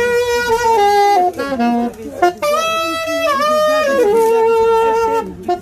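Instrumental music: a solo wind instrument plays a melody in long held notes that step up and down in pitch, with a short drop in loudness about two seconds in.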